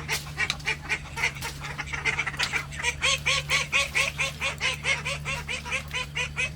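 Ducks quacking in a rapid, steady run of short calls, about five a second.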